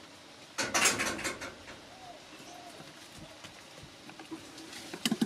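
Leaves and stems rustling and crackling as someone shifts about in dense foliage, loudest in a burst about a second in, then small snaps and rustles, with a few sharp crackles near the end.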